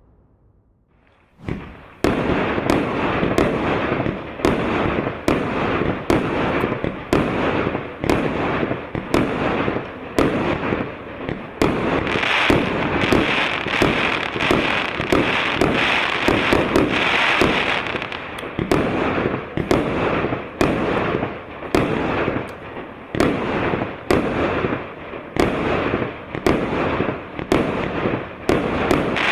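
A 100-shot firework cake of 1.25-inch tubes (Novogodnyaya Zateya P8475) firing. It starts about a second and a half in, then runs as a steady string of shots, about two a second, over continuous crackling that is densest in the middle.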